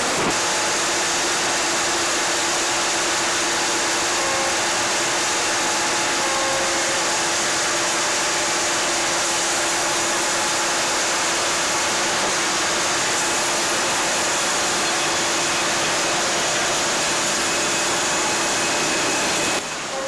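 Sawmill band saw headrig running while a log on the carriage is sawn: a dense, steady machine noise with a constant hum underneath. It drops in level just before the end.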